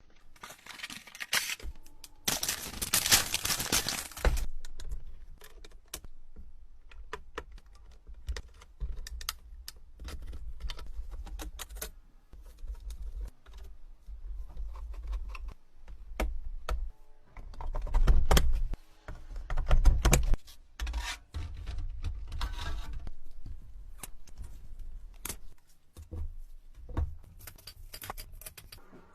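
Computer parts and packaging being handled and fitted together: a busy run of small clicks, rattles and knocks, with bursts of rustling.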